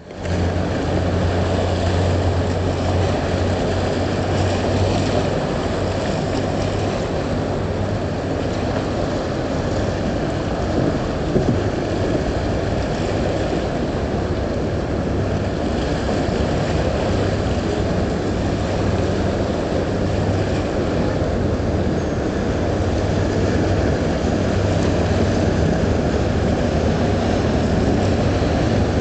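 Boat engine running with a steady low hum, over the rush of water and wind buffeting the microphone.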